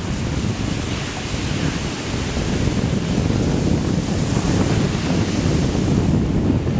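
Ocean surf breaking over near-shore rocks and washing in, a steady rush of waves, with wind buffeting the microphone.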